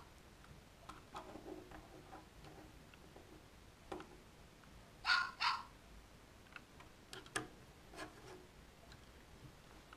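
Recorded dog barks played through the small speaker of a LEGO Mindstorms EV3 brick: two quick barks about five seconds in, with a few sharp clicks before and after.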